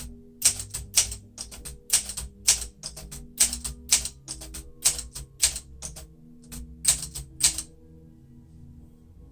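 Olympia SM9 manual typewriter being typed on, its type bars striking the platen about twice a second. The strikes stop about three-quarters of the way through.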